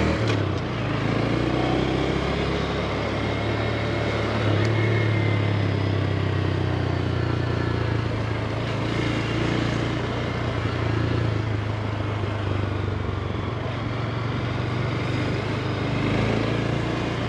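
2022 Honda Grom's single-cylinder engine running steadily while being ridden: a constant low hum with no marked revving, under a steady rush of noise.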